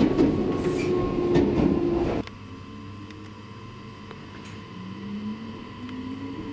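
Train running noise heard from inside a JR Hokkaido 733 series electric multiple unit pulling into a station. A loud rumble drops off abruptly about two seconds in to a quieter running hum, with a faint rising whine near the end.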